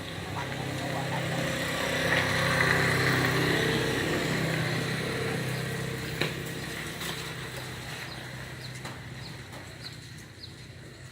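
A motor vehicle passing by, its engine growing louder over the first few seconds and then slowly fading away.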